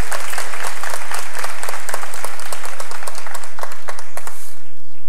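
Audience applauding, many hands clapping together, dying away about four and a half seconds in.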